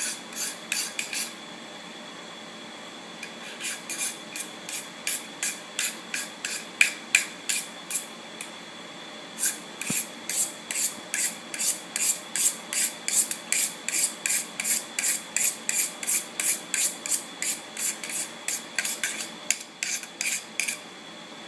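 Repeated rasping rubbing strokes, about two to three a second, hissy and high-pitched. They pause twice briefly and stop shortly before the end.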